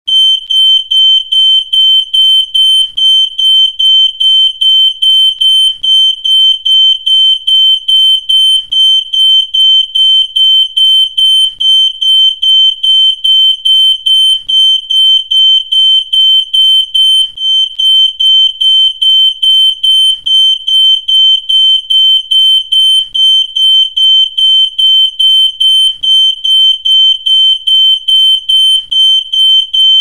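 Electronic alarm beeping: a single high-pitched tone pulsing in rapid, evenly spaced beeps without a break.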